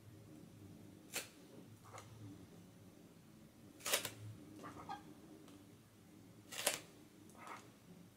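A few short, sharp clicks and scratches from hand work on a spray-paint painting, the loudest about four seconds in and again near seven seconds, over a low steady hum.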